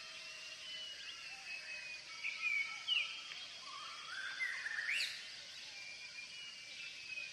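Faint high chirps and short whistling glides over a steady high hiss, with a louder rising whistle about five seconds in.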